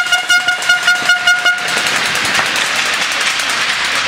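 Air horn blaring in rapid pulses, stopping about a second and a half in and giving way to steady clapping from the crowd.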